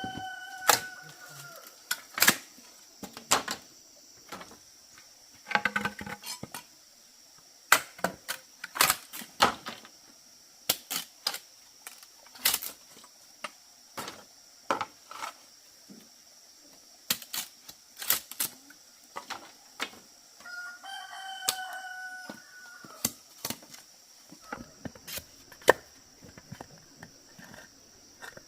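A rooster crows twice, once right at the start and again about two-thirds of the way through, over irregular sharp knocks and taps like chopping or hammering, which are the loudest sounds. A steady high insect drone runs underneath.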